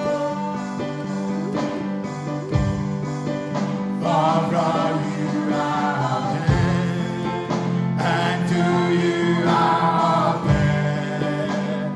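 Live gospel worship music: a band playing sustained chords under sung vocals.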